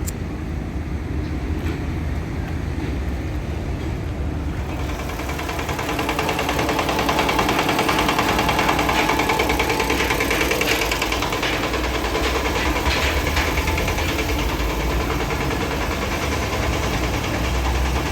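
Diesel engine of a concrete mixer truck running steadily, growing louder about five seconds in and then holding.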